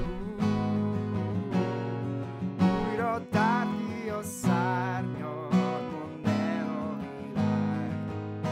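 A man singing a worship song, accompanying himself on a strummed acoustic guitar, with a strum about once a second and a held, wavering vocal line in the middle.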